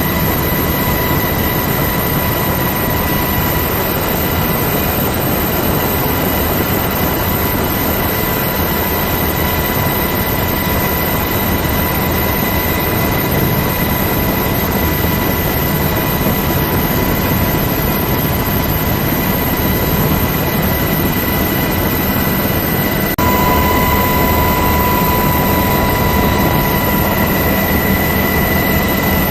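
Aircraft turbine engine noise: a steady rush with an even high whine. It changes abruptly about 23 seconds in, where the whine grows louder.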